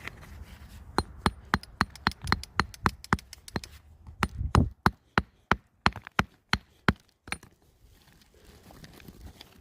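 A hand tool striking rock: about twenty sharp taps at roughly three a second, one heavier knock near the middle, chipping at the host rock to free agate nodules.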